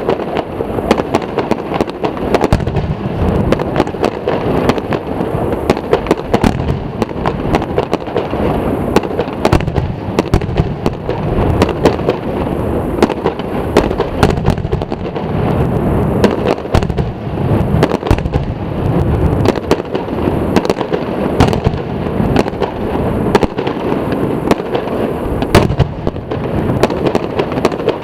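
Aerial fireworks shells bursting in rapid succession: a dense, unbroken barrage of loud bangs over a continuous low rumble.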